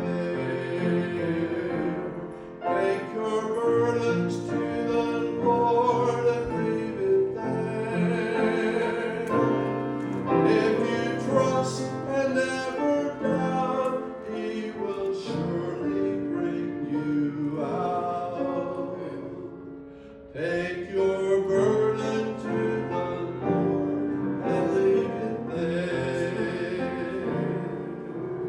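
A solo singer with vibrato, accompanied by piano, with a short pause about two-thirds of the way through.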